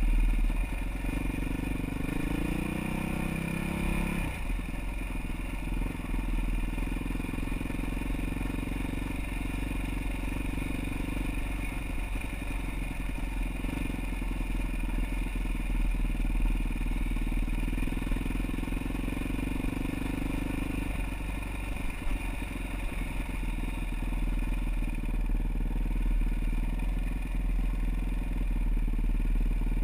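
Off-road motorcycle engine running while riding a trail, climbing in pitch over the first few seconds, then pulling steadily with small changes in throttle, over a constant low rumble.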